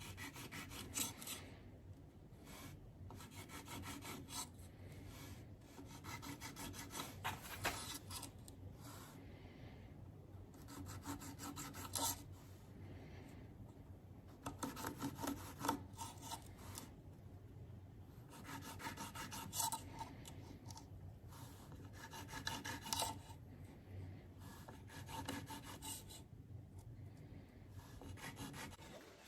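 Woodworking sounds: short bursts of scraping and rubbing on wood, coming every few seconds.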